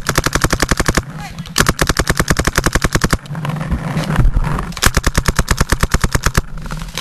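Paintball marker firing in rapid strings, about a dozen shots a second. There are three runs of a second or more each, with short pauses between them.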